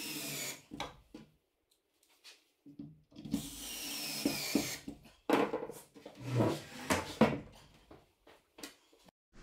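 Cordless drill-driver running twice, each time for about a second, its whine falling in pitch as it drives a screw into the composite chair. Scattered knocks and clicks follow as the plastic chair parts are handled.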